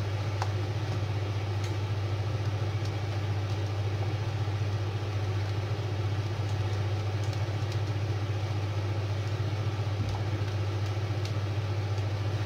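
Steady low electrical hum with an even hiss over it, with a few faint ticks.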